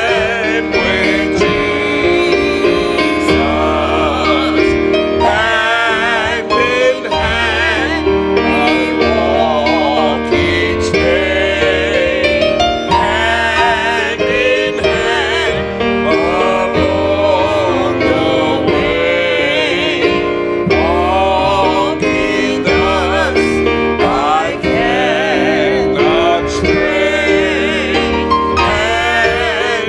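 A man singing a gospel song with a wide vibrato, accompanied by a grand piano.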